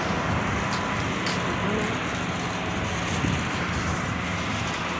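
Steady street traffic noise, an even hum of passing cars with no single event standing out.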